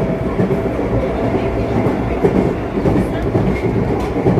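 Moscow Metro train running between stations, heard from inside the carriage: a loud, steady rumble of wheels on rails.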